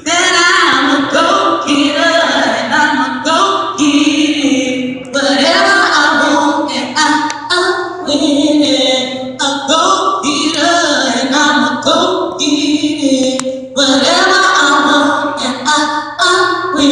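A woman's voice singing unaccompanied, holding and sliding between notes, as a vocal warm-up.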